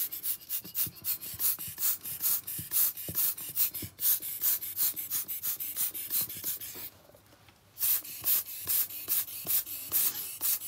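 Small hand-squeezed air blower (bellows) puffing air in quick succession to push wet alcohol ink across paper, about four short hisses a second. The puffing pauses briefly about seven seconds in, then starts again.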